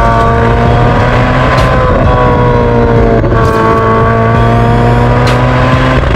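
Ferrari 488 GTB's twin-turbo V8, breathing through an aftermarket Fi Exhaust valvetronic cat-back exhaust, running at a steady pace as the car drives past. Its engine note holds steady and dips slightly in pitch about two and three seconds in.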